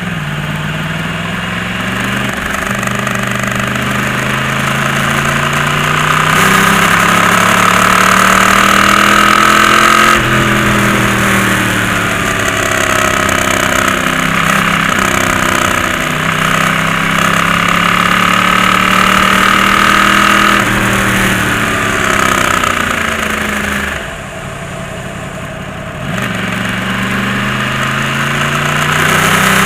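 Yamaha YZF-R1's inline-four engine under way, its pitch climbing and falling as it is accelerated and eased off, with sudden steps at the gear changes; the throttle closes for a couple of seconds about three quarters of the way through, then it pulls again.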